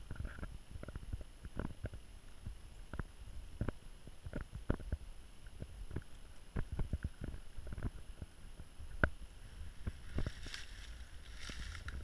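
Low wind rumble on the microphone with irregular soft knocks and clicks.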